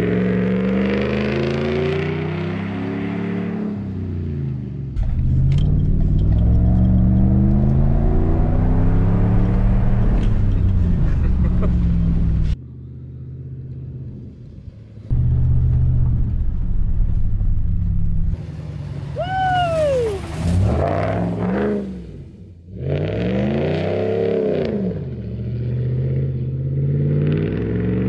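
Ram 1500's Hemi V8 revving hard and easing off again and again as the pickup is driven around a field, the engine note rising and falling over and over. There are several sudden cuts between passes.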